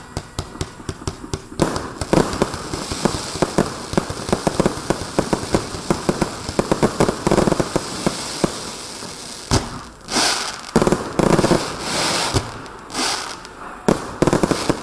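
SQS-G13 consumer cake firework firing: a rapid volley of tube launches and aerial bursts, several shots a second, over constant crackling. Near the end come a few longer crackling bursts.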